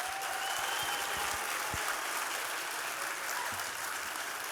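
An audience applauding steadily, many hands clapping at once, with a few voices calling out over it.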